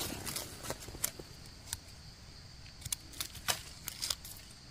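Scattered sharp clicks and crackles of dry leaf litter and twigs being handled while a mushroom is cut from the forest floor with a knife, about eight separate ticks spread through, over a faint steady high-pitched background drone.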